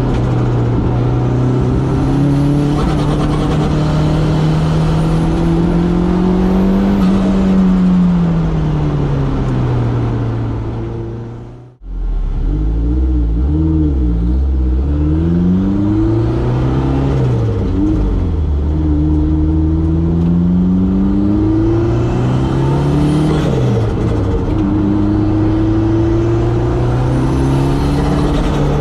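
Turbocharged 2.0-litre four-cylinder 3S-GTE engine in a Toyota MR2 AW11, driven hard, with revs climbing and falling again and again through acceleration, shifts and lifts. The sound drops out abruptly for a moment about twelve seconds in.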